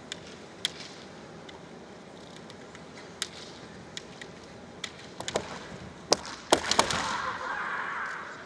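Bamboo kendo shinai ticking against each other in occasional single sharp clicks as the tips touch. About five seconds in comes a quick flurry of loud cracks as the two fencers exchange strikes and close in. This is followed by about a second and a half of louder noise.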